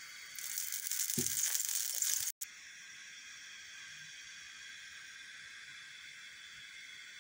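Oil sizzling on a hot non-stick tawa as it is spread with a silicone basting brush, with a light knock about a second in. The sizzle cuts off abruptly after about two seconds, leaving only a faint steady hiss.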